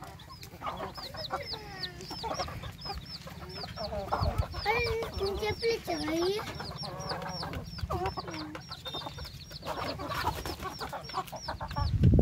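Baby chicks peeping steadily, about three high cheeps a second, while hens cluck and call beneath them. A loud thump comes right at the end.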